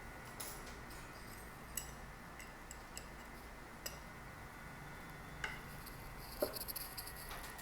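Light clicks and taps of small plastic parts being handled as a portable speaker is taken apart by hand, with a short cluster of rattly clicks near the end.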